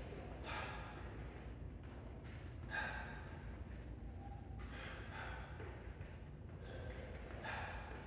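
A man breathing hard while shadowboxing, with a short, sharp exhale every second or two as he throws jabs, over a low steady hum.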